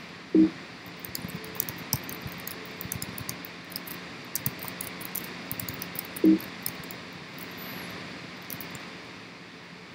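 Typing on a computer keyboard: quick runs of key clicks with short pauses between them. Two brief, loud, low bumps stand out, about half a second in and again around six seconds in.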